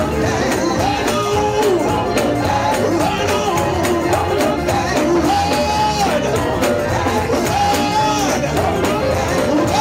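Live gospel music: a singer holding long, drawn-out notes over a band with a steady beat.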